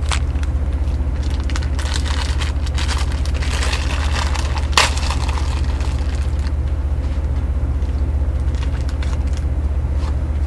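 Two-way radio net idling between transmissions: crackling static and scattered clicks over a steady low hum, with one sharp click about five seconds in.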